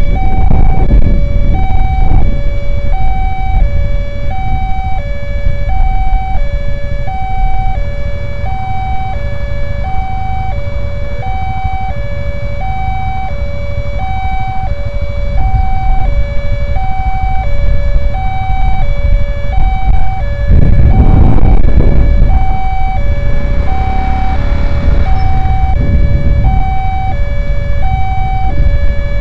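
Railway level-crossing electronic warning alarm sounding its two-tone signal, steadily alternating a higher and a lower tone, each held a little under a second, to warn that a train is approaching. Road traffic rumbles underneath, with a louder vehicle passing about 21 seconds in.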